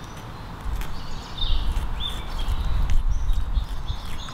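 Gusty low rumble of wind on the microphone, with a few short high chirps around the middle and light clicks as a knife slits open a rainbow trout's belly.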